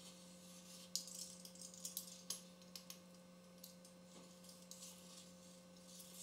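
Faint scraping and clicking of a pizza cutter wheel rolling through soft almond barfi on a silicone baking mat along a ruler, in a few short bursts clustered around the first half, over a steady low hum.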